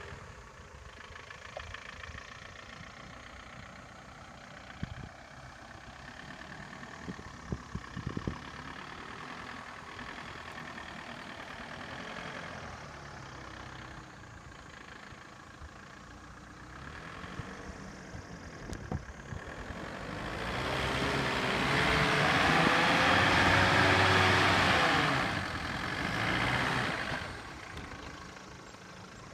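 Force Gurkha off-roader's engine running at low revs as it crawls over rough ground, with a few scattered knocks. About two-thirds of the way in it revs up hard in rising and falling surges for several seconds as the vehicle climbs a steep slope, then settles back to a low run.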